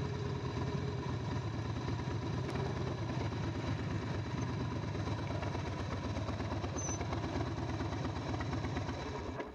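2008 Harley-Davidson Night Train's Twin Cam 96B V-twin running steadily at low revs. The sound stops abruptly near the end.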